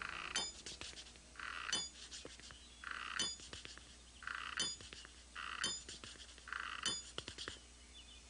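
Cartoon sound effect of an old man hobbling on a metal wrench used as a walking cane: a slow, regular pattern of shuffling scuffs, each followed by a sharp metallic clink of the wrench on the floor, six times.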